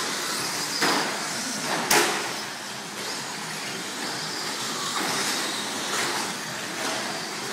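Radio-controlled 2WD short-course trucks racing on a dirt track. Their motors whine, rising and falling with the throttle, over the rush of tyres on dirt. There is a sharp knock about two seconds in.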